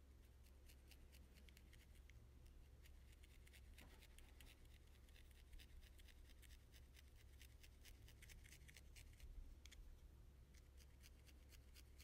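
Felting needle repeatedly pricking into wool: a fast run of faint, crisp little pokes, over a low steady hum.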